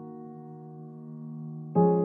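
Soft background piano music: a held chord slowly fading, then a new chord struck near the end.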